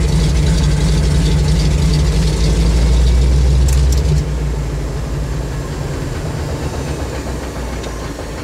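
A single-engine bush plane's piston engine, heard from inside the cockpit, runs loudly and steadily at low power while the plane taxis. About four seconds in the throttle is pulled back, and the engine sound drops and fades away.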